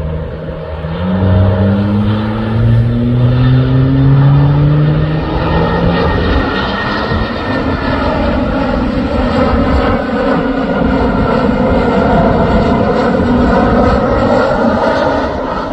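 Twin turbofan engines of a QantasLink Embraer E190 on landing approach: a steady jet drone that swells about a second in and stays loud as the aircraft comes close. Low tones slide slowly upward over the first several seconds.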